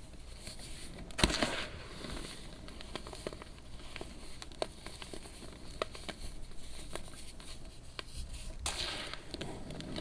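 Dried, compacted baking soda crunching and crumbling, with scattered small crisp crackles, one louder crunch about a second in and a longer crumbling crunch near the end.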